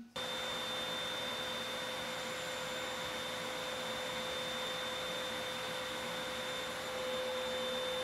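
Household vacuum cleaner running steadily: a constant rushing noise with a steady whine in it. It cuts in suddenly right at the start.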